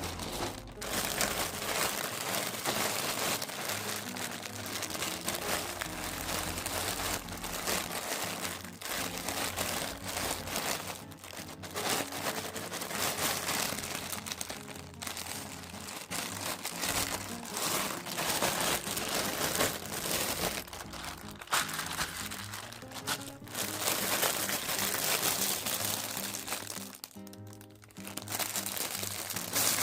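Packaging crinkling and rustling continuously as parcels and wrapped items are handled and opened, over background music. There is a short lull near the end.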